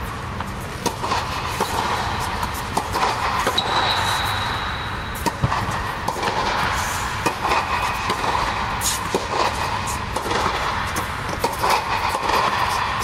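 Tennis balls being struck by rackets and bouncing on a court: sharp, irregular pops over a steady background hiss.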